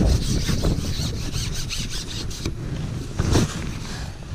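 Carbon fishing pole sliding and rubbing against the pole rest as it is handled, with a quick run of rubbing clicks over the first couple of seconds and a sharper scrape about three seconds in. Wind buffets the microphone underneath.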